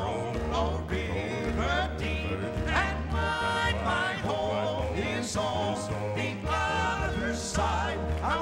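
Southern gospel quartet song: men's voices singing in harmony over upright bass and piano.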